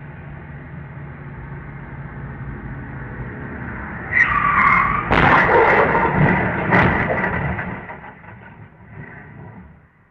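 Tyres squealing in a skid about four seconds in, then a loud crash as a pickup truck and a car collide, with a second bang a moment later and clattering debris dying away.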